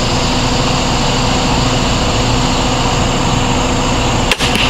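Steady mechanical drone of a running motor or small engine, even and unchanging, with a brief dropout near the end.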